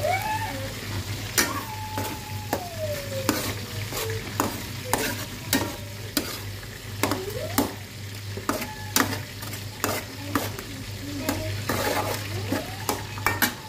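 Metal spoon stirring and scraping egg and tomatoes frying in an aluminium pan, with the sizzle of the frying and repeated sharp clicks of the spoon against the pan. A steady low hum runs underneath.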